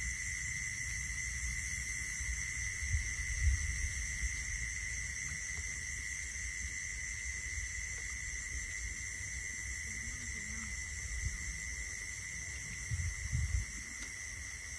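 Steady chorus of night insects in a field, several high shrill tones held without a break, over a low rumble with a few soft thumps.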